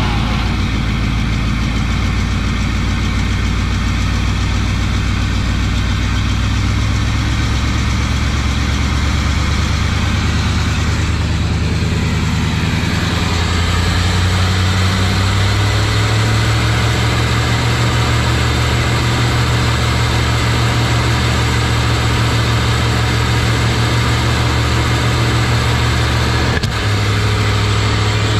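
1974 Chevy truck V8 running on gasoline through a Quadrajet four-barrel carburetor, just fired up and running steadily. Engine speed rises about halfway through and holds higher as the carburetor's throttle linkage is worked by hand.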